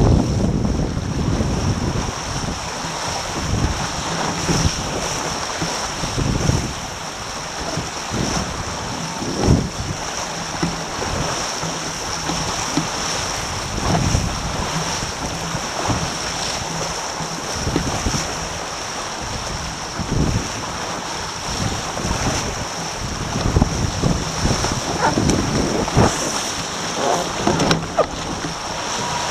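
Wind buffeting the microphone and water rushing past the hulls of a Taipan sport catamaran sailing fast through chop, with irregular thumps as the hulls hit the waves.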